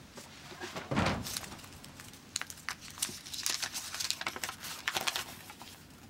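A patterned cloth food wrapping and a folded paper note rustling and crinkling as they are handled, in a run of short rustles with a few light clicks.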